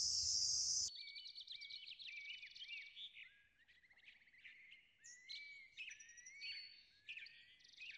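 Crickets' steady high trill for about the first second, cut off abruptly. Then birdsong follows, several chirping and whistled calls that rise and fall, coming in short phrases with gaps.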